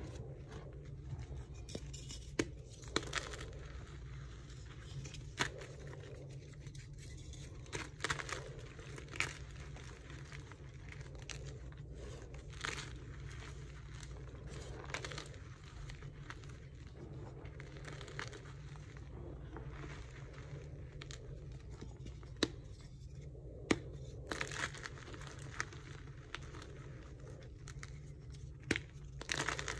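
Hands crushing and crumbling soft blocks of dyed gym chalk into powder: a continuous gritty crunching and rustling, broken by sharp cracks as pieces snap, about ten times. A steady low hum runs underneath.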